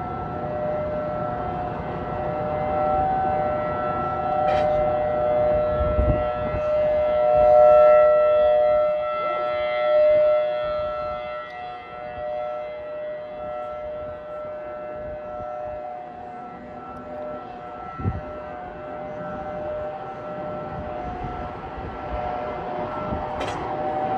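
Outdoor civil-defense warning siren sounding a steady wail during its monthly test. The pitch holds level while the sound swells to its loudest about eight seconds in and then fades as the rotating siren turns away.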